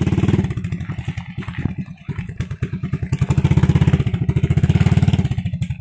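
Motorcycle engine running through an aftermarket Daeng power pipe exhaust, a rapid, even pulsing exhaust note that swells louder partway through, as with a blip of the throttle.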